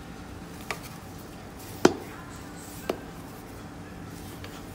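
A long metal spoon knocking three times against the side of a large metal stockpot while stirring mini marshmallows; the second knock is the loudest and rings briefly. A steady hum runs underneath.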